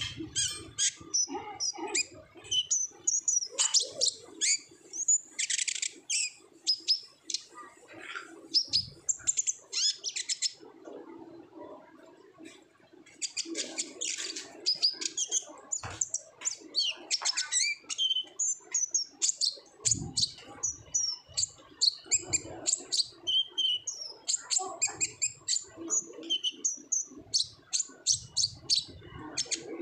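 A kolibri ninja sunbird singing vigorously: a fast, high twittering of chirps and clicks, broken by a short pause about midway.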